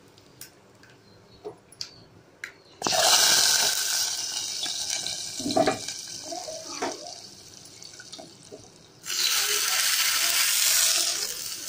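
Hot oil tempering of mustard seeds, lentils and curry leaves poured into a pot of soup: a sudden loud sizzling hiss about three seconds in that dies away, then a second burst of sizzling near the end. Before the first hiss there are a few light clicks.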